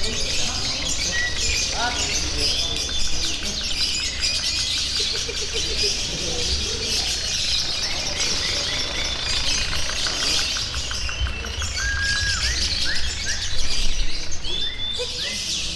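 Many caged songbirds singing at once: overlapping chirps, whistled notes and fast trills, over a steady low rumble.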